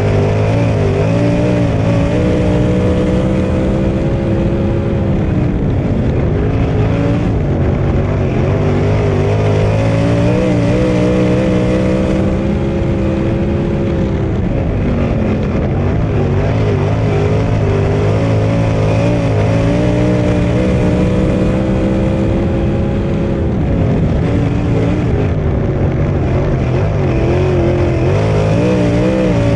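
Winged sprint car's V8 engine at racing speed, heard from on board the car. The pitch rises and holds high, then drops and stutters three times, at roughly nine-second intervals, as the car lifts off for the corners and then gets back on the throttle.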